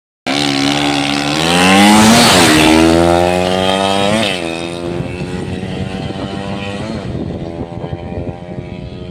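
Freshly overhauled motorcycle engine on a test run, revving up twice in rising pitch with a sharp drop after each peak, then running at a lower, steadier speed as the sound fades somewhat.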